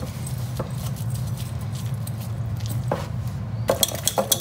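Wire whisk stirring wet cake batter in a glass bowl: soft squelching at first, then, from about three and a half seconds in, quick rapid clinks of the wire against the glass. A low steady hum runs underneath.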